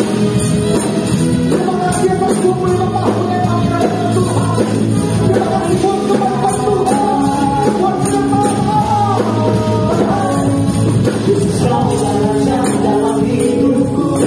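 Live praise-and-worship song: singers over a band, with tambourines jingling in time.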